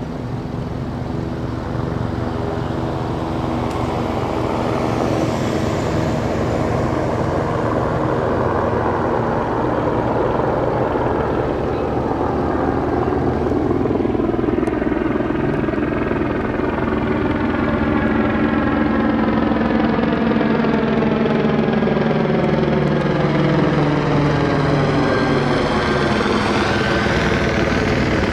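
Police helicopter circling low overhead: a steady rotor and engine drone that grows louder over the first ten seconds or so, with a swirling, sweeping quality from about halfway through as it moves across overhead.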